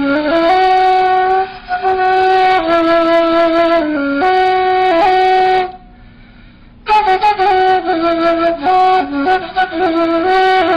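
Ney, the end-blown reed flute, playing a slow melodic line of held notes. It stops about six seconds in, then comes back after a short pause with quicker, ornamented notes.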